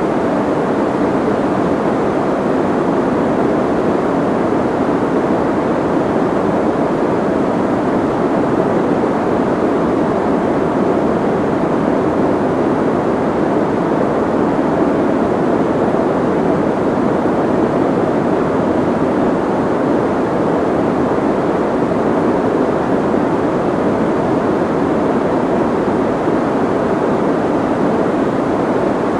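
Soft white noise: a steady, even hiss with the treble rolled off, giving a muffled rush.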